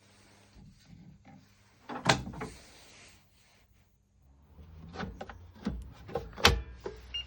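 A series of irregular knocks and clunks of handling, the loudest about two seconds in and again about six and a half seconds in, over a faint low hum.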